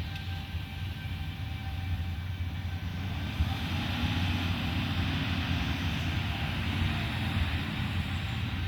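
Heavy farm machinery running steadily with a deep engine drone, growing a little louder about three seconds in.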